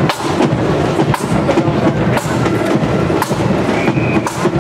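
Marching band side drums playing a street beat together, with a heavy beat about once a second.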